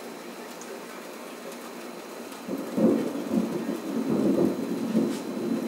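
Steady rain falling, then a loud rolling rumble of thunder sets in about halfway through and keeps surging in waves over the rain.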